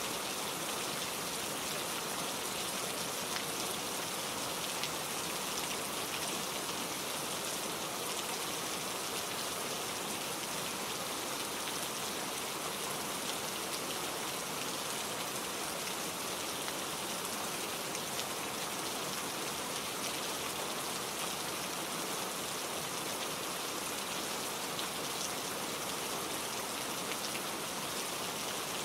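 Steady rain falling on leaves and plants, an even hiss with scattered drop ticks.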